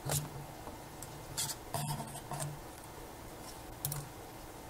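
Plastic lens-barrel parts scraping and clicking as they are worked apart with tweezers: a few short, faint scratchy handling noises, the longest a little under two seconds in.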